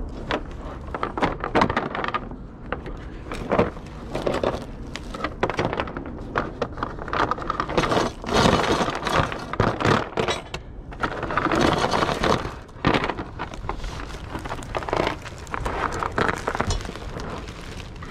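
Handling trash at a dumpster: plastic bags rustling and crinkling, mixed with repeated knocks and thuds as the dumpster's hinged lid is lifted and let back down.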